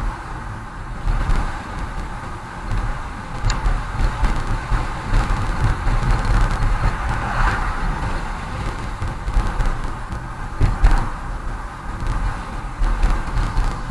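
Car interior road noise while cruising at about 48 km/h: a steady low rumble of tyres and engine with an even hiss on top.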